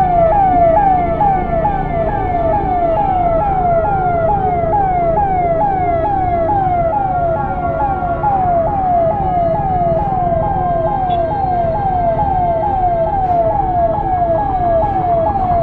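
Ambulance siren wailing in a fast repeating pattern, each tone sweeping downward about two and a half times a second, with road traffic noise underneath.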